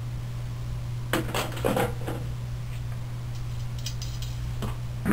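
A few light metallic clinks and clicks as steel rods, nuts and washers are handled and knocked together on a workbench, over a steady low hum.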